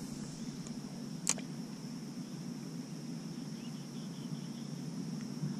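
Steady high insect drone over a low even hum, with one short sharp tick about a second in.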